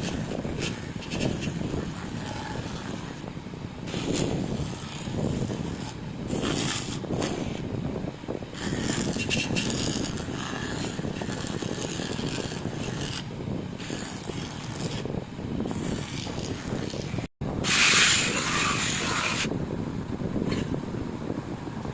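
Polishing machine running steadily while a motorcycle rear footrest bracket is pressed against its buffing wheel, giving bursts of scraping hiss each time the part bears on the wheel. The loudest burst comes just after a brief cut-out about 17 seconds in.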